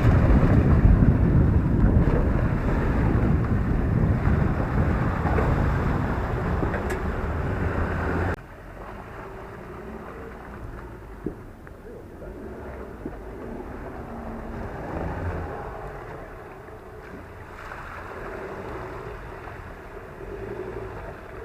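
Ford Ranger ute driving through a muddy bog hole: engine running under load with water and mud churning and wind noise on the microphone. About eight seconds in it cuts to a quieter stretch of the engine running.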